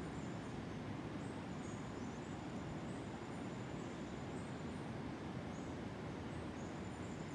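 Tropical coastal forest ambience: a steady low rush, with a thin, high, continuous insect trill and short high chirps recurring about once a second.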